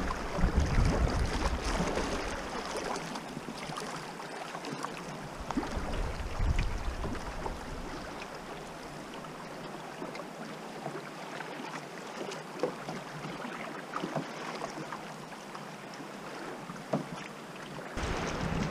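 Moving river water washing and lapping around a canoe's hull, with scattered small splashes and knocks from paddling. Wind buffets the microphone for the first couple of seconds.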